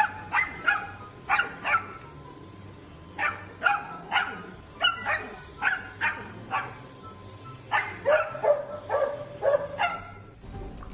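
A puppy barking repeatedly, about twenty short, high-pitched barks in quick clusters of two to four, stopping just before the end.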